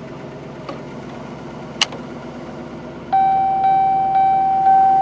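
A faint click, then a sharp switch click just under two seconds in, followed near the end by the 2004 Chevrolet Suburban's dash warning chime: a steady electronic tone struck four times, about two a second.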